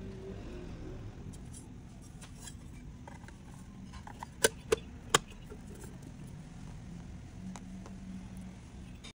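Metal top cover plate of a finned fanless PC case being set onto the case by hand: light handling clicks, then three sharp clicks in quick succession about halfway through as the plate meets the case.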